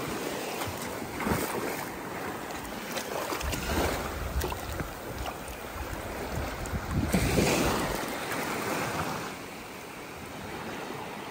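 Small waves washing in over a sandy shore and through the shallows, with wind gusting on the microphone. The wash swells loudest about seven seconds in.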